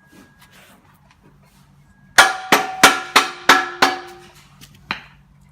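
Hammer blows on steel: six quick, ringing strikes at about three a second, then one lighter hit about a second later. They are driving a tight-fitting part of a steel backhoe bucket connector home.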